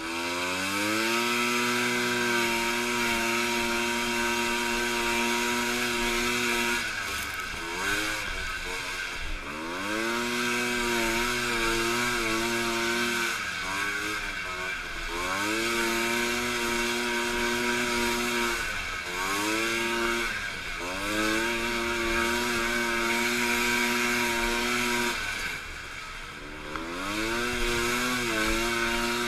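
Small single-cylinder two-stroke snowmobile engine running at high revs under race throttle. Four times, about every six seconds, the pitch falls as the throttle is eased for a turn, then winds back up.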